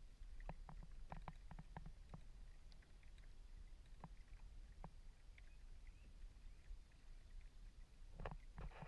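Kayak being paddled, faint: a quick run of light knocks and clicks early on, two single knocks a few seconds later, and a short splashy burst near the end, over a low steady rumble.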